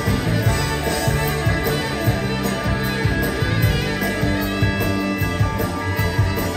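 Live pop-rock band playing an instrumental passage: electric guitars over drums with a steady beat.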